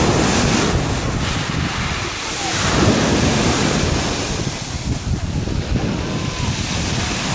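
Sea waves breaking and washing up a pebble beach, a steady surf rush that swells as a wave crashes near the start and again about three seconds in, with wind buffeting the microphone.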